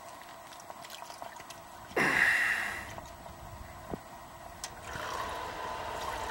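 Pink antifreeze pouring from a plastic gallon jug into the reservoir of a condensate pump: a short gurgling gush about two seconds in, then a steady splashing pour from about five seconds on.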